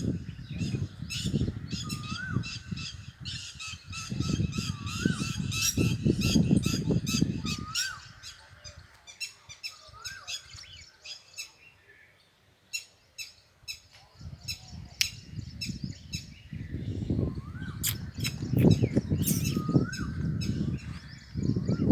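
Parrots calling outdoors: a short rising call repeated every couple of seconds, over dense high chirps and squawks. A low rumbling noise, louder than the calls, fills the first third and the last third.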